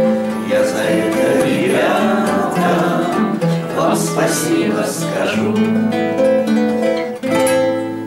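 Two nylon-string classical guitars strumming and picking the closing bars of a song, with voices holding long notes over them.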